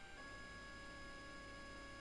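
3D printer's stepper motors running with a faint, steady whine of held tones, which break briefly and shift slightly in pitch right at the start.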